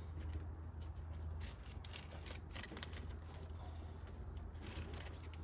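Faint scattered clicks and rattles of hands working a plastic wiring connector at an engine computer, trying to seat a connector whose locking clip is broken so it won't click in place, over a steady low hum.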